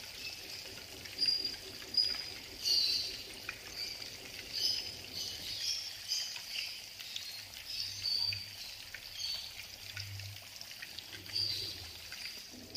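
Battered papaya pieces deep-frying in a wok of hot oil: a steady sizzle with irregular bursts of crackle.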